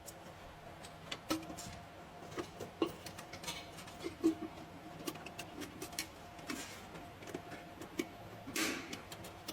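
Irregular light clicks and taps with a few short scrapes, the longest scrape near the end, over a faint steady hum: hand-tool and parts handling.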